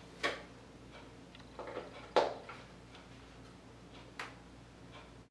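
Dry-erase marker on a whiteboard: a few sharp taps and clicks with short scratchy strokes of writing, the loudest click about two seconds in, over a steady low hum.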